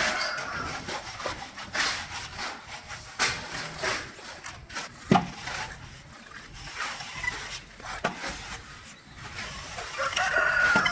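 Scattered knocks and rubbing from hand work, the loudest knock about halfway through. A drawn-out pitched call is heard at the start and again near the end.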